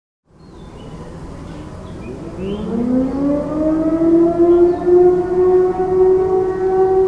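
Several distant outdoor tornado warning sirens winding up together, their pitches rising from about two seconds in and levelling off into a steady wail. The nearby Sentry 16V1T-B is silent, having failed to pick up the radio activation signal.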